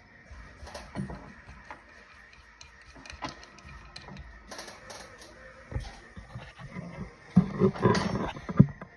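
Scattered clicks and knocks of something being handled, with a louder cluster of knocking and clattering near the end.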